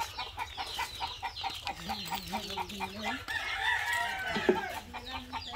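Native chickens clucking continuously in quick short calls, with a rooster crowing.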